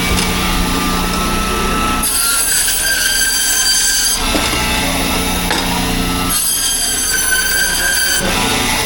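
A saw cutting through a large fish, screeching high-pitched in two passes of about two seconds each, with a steady low hum between the cuts.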